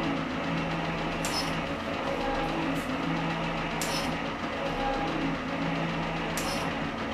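Värnamo metal shaper running, its ram stroking back and forth over a steady motor hum, with a brief hiss about every two and a half seconds as each stroke comes round. The tool is taking a finishing pass across a steel anvil face on the machine's first feed setting, with oil on the cut.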